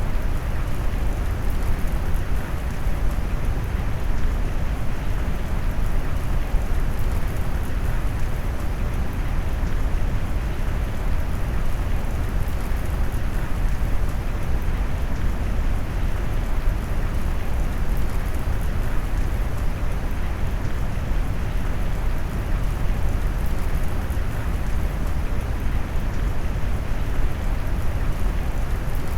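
Brown-noise rain mix: a steady, deep rushing noise weighted heavily toward the low end, with no single drops or thunderclaps standing out.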